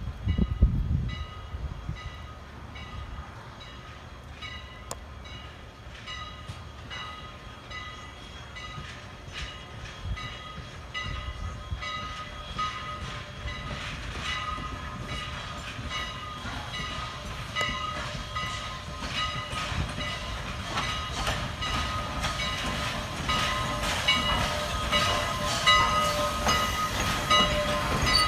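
The ex-CN 89 steam locomotive and its train approach, growing steadily louder, with a rapid, regular ringing throughout. A low wind rumble on the microphone is heard in the first second.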